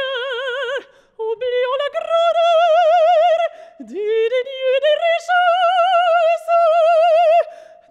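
A female classical singer singing in operatic style with wide vibrato: short phrases, a brief break about a second in, then a long held high note from about five seconds in that stops shortly before the end.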